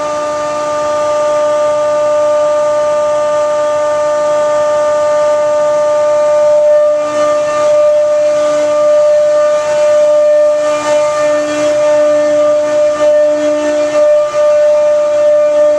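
Loud, continuous machine whine holding one high pitch. About halfway through, a lower hum starts pulsing on and off and bursts of hiss come and go over it.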